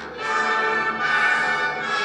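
Orchestral music from the show's soundtrack swells in loudly just after the start, with strings and brass holding sustained chords.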